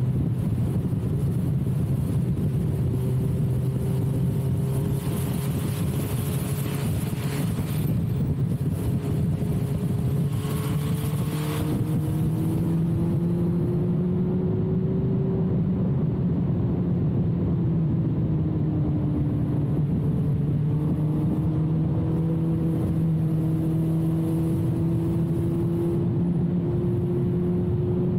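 2006 Suzuki GSX-R1000's inline-four engine running through a full carbon/titanium Yoshimura exhaust at fairly steady riding revs, its pitch drifting slowly up and down with the throttle. Wind rush is mixed in, strongest for several seconds before the middle.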